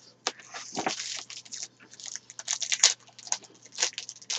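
A trading-card pack's foil wrapper being torn open and crinkled by hand: a run of irregular crackles and rustles.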